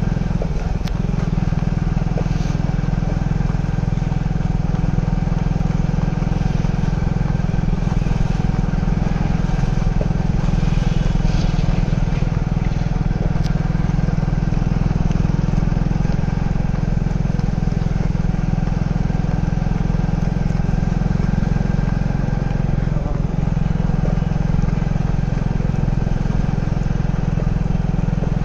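Motorcycle engine running steadily at an even speed, a constant drone with no rises or drops.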